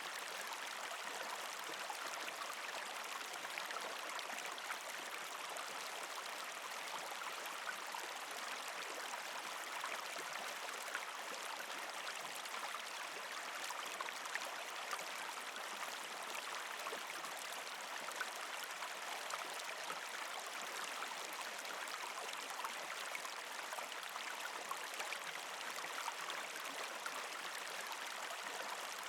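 Shallow creek flowing and trickling over rocks between ice, a steady even splash and gurgle with small flickers of trickles.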